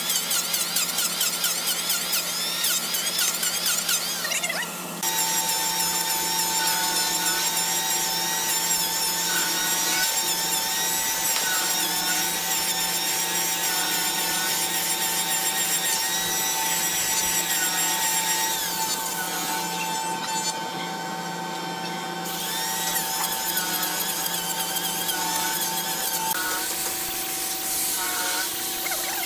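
Handheld electric power tools, chiefly an electric hand planer, running steadily as they shave the edge of a thick solid-wood round tabletop. The motor's steady whine wavers in pitch as the cut loads it. The sound changes abruptly about five seconds in.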